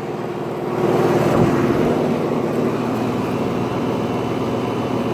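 Outdoor central air conditioner condensing unit running: a steady compressor hum under the rushing of its condenser fan, growing louder about a second in.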